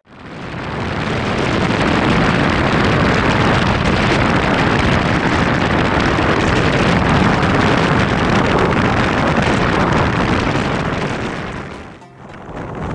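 Motorcycle riding at speed, heard as a loud, steady rush of wind on the microphone over the running engine. The rush swells in over the first couple of seconds and dips briefly near the end.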